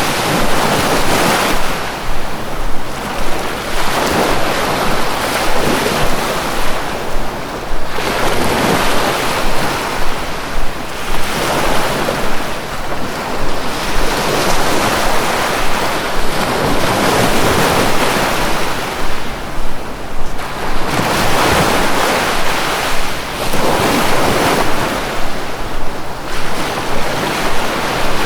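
Sea waves breaking and washing on the shore, a steady rush of surf that swells and eases every few seconds.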